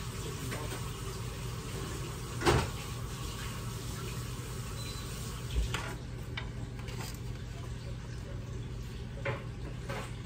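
Kitchen clatter of dishes and pots as food is served onto a plate: a few scattered knocks and clinks, the loudest about two and a half seconds in, over a steady background hum.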